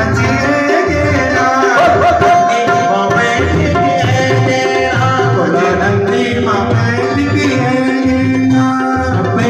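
Garhwali devotional song (bhajan) playing: a melody line that bends in pitch over a steady, regular drum beat.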